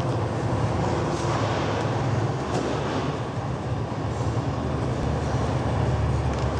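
Injection pump running steadily while filler is pumped through a hose and ball-valve nozzle into a rebar sleeve coupler: a continuous low mechanical rumble with a hiss over it.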